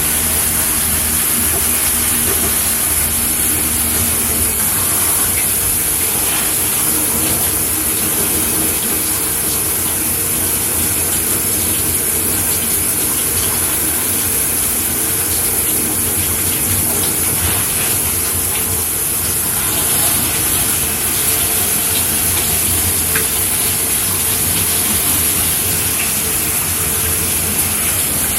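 A shower running steadily: an even, high hiss of water spraying from the shower head. A low steady hum sits underneath for the first few seconds.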